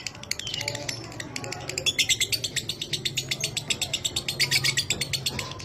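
Lovebird giving the long 'ngekek' chatter: a fast, even run of sharp high chirps, about ten a second, with a short break about a second and a half in.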